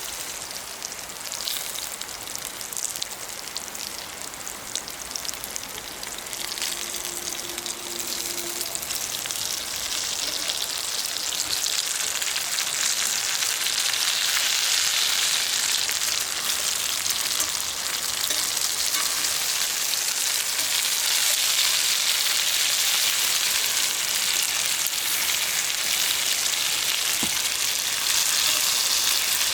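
Food frying in a hot pan: a steady sizzle with scattered pops and crackles early on, growing louder over the first half and then holding steady.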